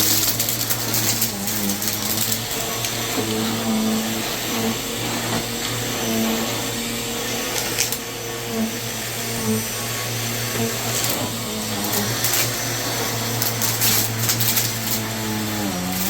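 Red Helix vacuum cleaner running steadily while vacuuming. Its motor hum wavers slightly in pitch, with brief crackles through it.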